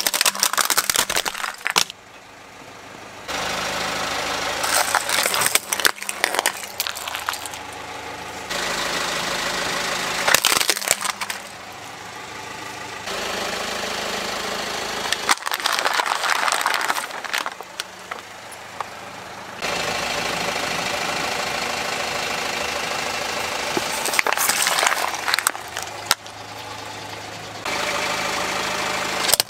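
A car running at idle while its tyre slowly rolls over and crushes plastic objects in a series of separate clips, with spells of cracking and snapping plastic between steadier stretches of engine sound. The objects crushed include plastic toy trucks and plastic cups filled with water beads.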